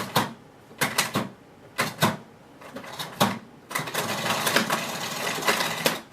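Tug-type cord rewind of a Siemens Z6 cylinder vacuum cleaner: several sharp clicks as the cord is tugged, then the cord rattling and clattering as it reels in for about two seconds before stopping suddenly. The rewind is erratic and needs several tugs before it takes the cord in.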